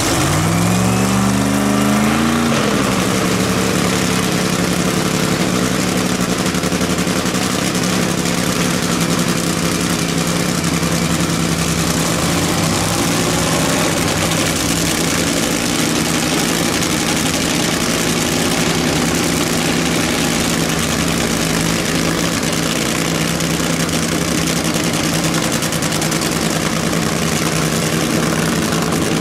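Top Fuel Funny Car's supercharged nitromethane V8 being started, its pitch rising over the first couple of seconds as it catches, then settling into a loud, steady idle for a warm-up with the body raised.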